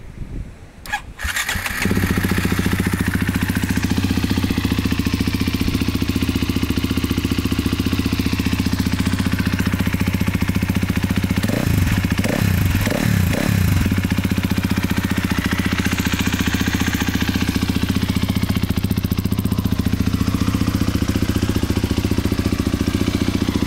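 KTM 250 EXC-F's single-cylinder four-stroke engine starting, catching after a second or two and settling into a steady idle. About halfway through, the throttle is blipped three times in quick succession, the note rising and falling each time, before it drops back to idle.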